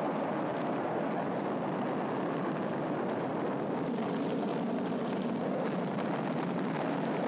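Saturn V rocket's five F-1 first-stage engines at ignition and liftoff: a steady, dense rumble that holds at an even level.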